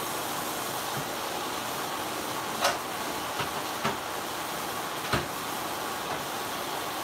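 Kitchen tap running steadily into the sink, with a handful of clinks and knocks of dishes being handled, the loudest about two and a half and five seconds in.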